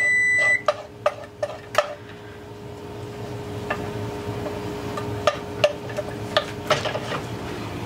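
An electronic kitchen timer's steady beep sounds and cuts off about half a second in. Then a utensil clicks and scrapes in a skillet as butter is stirred into a pan sauce.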